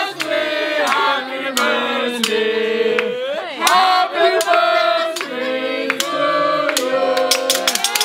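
A group of waitstaff singing a celebration song together, with hand claps keeping time that become faster and more regular toward the end.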